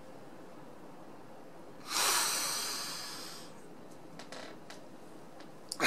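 A man's heavy breath out through the nose about two seconds in, lasting about a second and a half and fading away, followed by a few faint mouth clicks and the start of another loud breath at the very end.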